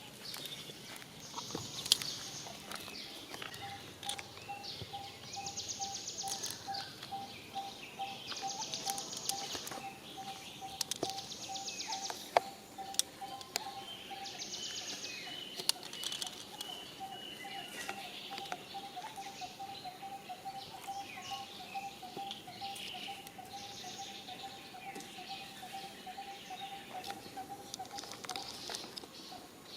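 Outdoor ambience: repeated high, buzzy trills about a second long, typical of insects, over a steady, rapidly pulsing call. There are a few bird chirps near the middle and scattered sharp clicks.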